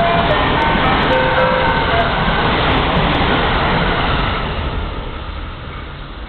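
A 683-series limited express train passing through the station, a loud rushing rumble that fades away over the last two seconds. The last notes of the station's approach chime ring over it in the first second or so.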